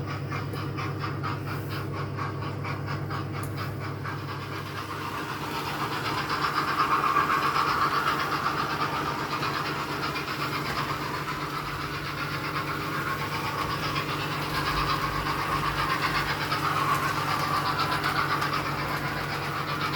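Model railway steam locomotive's electric motor whirring and its wheels running on the track as it hauls a rake of four coaches round the layout, with a fine rapid ticking. It grows louder twice as the train comes near, then fades back.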